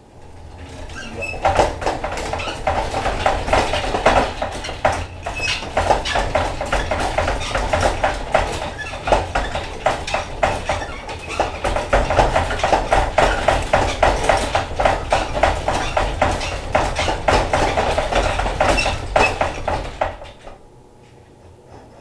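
Hand-cranked metal honey extractor spinning comb frames: a fast, steady metal clatter over a low rumble that builds up over the first second or two and stops about two seconds before the end.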